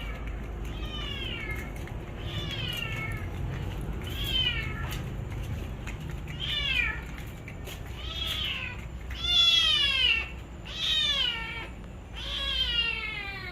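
Domestic cat crying out in pain from being impaled on an iron fence spike: about eight long, loud meows, each falling in pitch, spaced a second or two apart, the loudest about two-thirds of the way in.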